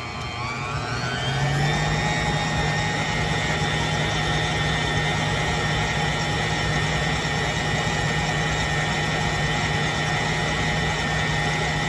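A Cuisinart 500-watt stand mixer's motor is kneading wheat dough with its dough hook. Its whine rises in pitch and grows louder over the first two seconds as the mixer speeds up, then runs steady at the higher speed.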